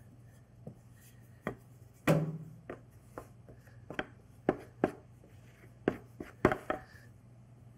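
Wooden rolling pin rolled over the metal rim of a fluted tart pan, cutting off the excess dough: about a dozen light, irregular knocks and clicks as the pin bumps on the rim and the pan shifts on the counter.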